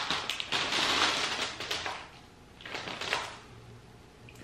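Coated popcorn poured from its bag onto a paper plate, the pieces rattling down onto the plate with the bag crinkling. A longer pour is followed by a short second pour about three seconds in.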